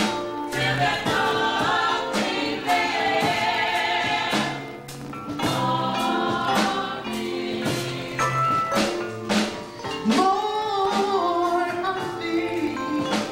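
Youth gospel choir singing with accompaniment, a steady beat running under the voices.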